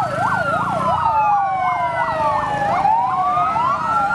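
Fire engine sirens sounding together. A fast yelp sweeps up and down about three times a second for the first few seconds, over slower rising and falling wails that carry on throughout.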